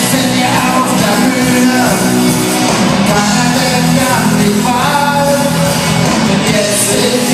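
A live band playing a song in a rock-and-roll style, with a male voice singing and occasional shouts.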